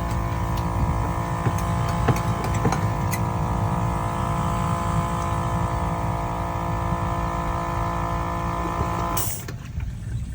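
Small engine running steadily at one even pitch, cutting off abruptly about nine seconds in.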